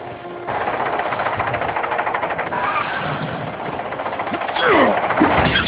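Action sound effects from an animated film: a loud, steady rumbling rush comes in about half a second in, and several quick falling screeches cut through it near the end.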